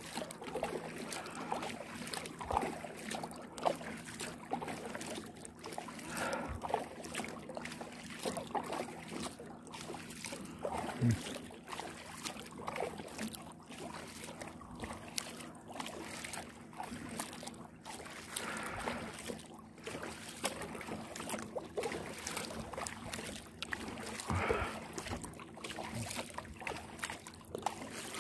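Kayak paddle strokes in calm water: the blades dipping and pulling, with water splashing and trickling off the paddle.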